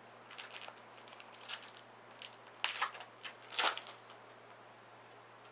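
Trading cards being slid off one another by hand as a pack is sorted: a few short papery swishes, the two loudest about two and a half and three and a half seconds in.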